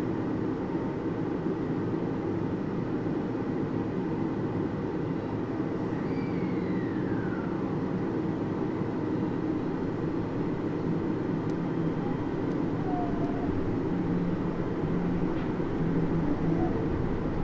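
Interior running sound of a Maihama Resort Line Series 10 (Type-X) monorail car with Hitachi IGBT-VVVF traction: a steady low rumble of the train running along the guideway. About six seconds in a brief whine slides down in pitch.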